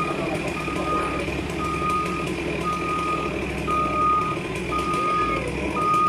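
Excavator's backup alarm beeping: long, steady beeps about once a second, over the machine's diesel engine running steadily.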